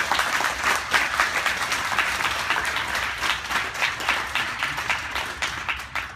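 Audience applauding, many hands clapping at once; the clapping thins out and stops near the end.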